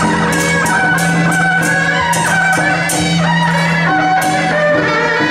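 Traditional temple-procession band music: a sustained wind melody over repeated cymbal strikes, about two or three a second.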